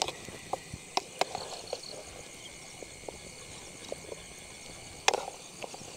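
Crickets chirping steadily, with scattered light clicks and knocks of cooking as radish is added to the pan, the loudest clatter about five seconds in.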